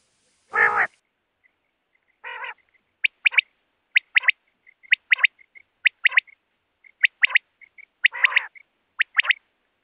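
Common quail (Coturnix coturnix) giving its three-note "wet-my-lips" song, repeated about once a second, with a few longer, lower nasal calls between the phrases.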